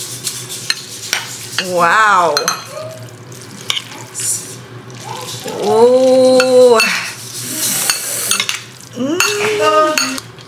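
A metal fork and spoon click and scrape against ceramic bowls as noodles are stirred and tossed with chili sambal. A voice breaks in three times with drawn-out vocal sounds: a falling "wow" about two seconds in, a longer held note around the middle, which is the loudest sound, and a shorter one near the end.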